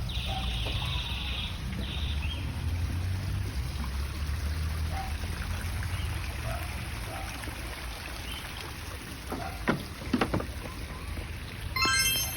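Outdoor lakeside ambience: a steady low rumble of wind on the microphone under a hiss of water, with a few short bird chirps. Two sharp sudden sounds come about ten seconds in, and a brief high bird call near the end.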